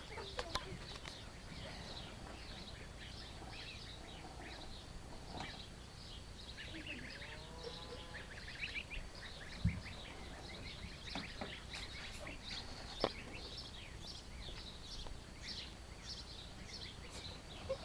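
Many small birds chirping throughout, with a single wavering, drawn-out animal call in the middle and two sharp knocks, the loudest sounds, shortly after.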